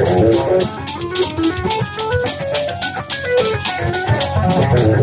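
Extended-range electric guitar playing fast single-note metal runs, the notes stepping quickly up and down in pitch, over a steady row of sharp hits several times a second.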